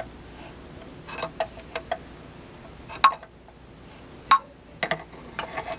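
About eight sharp metal clinks and taps, irregularly spaced, from the steel parts of a pull-type truck clutch being turned and its throwout-bearing gap checked with a steel half-inch adjusting rod.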